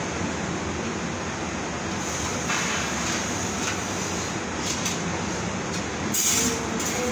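Steady industrial noise of a welding and fabrication shop: machinery and ventilation running, with a brief louder hiss near the end.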